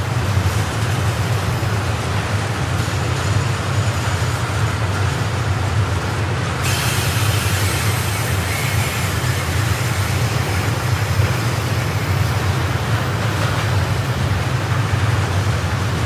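Freight train of tank wagons rolling past, a steady low rumble of wheels on rail. A brighter hiss comes in about seven seconds in.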